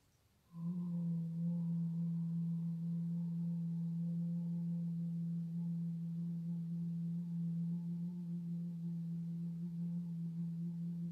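A woman's voice holding one steady low toned note for about eleven seconds: a healing sound sustained on the out-breath during a meridian stretch. It starts about half a second in and stops cleanly at the end of the breath.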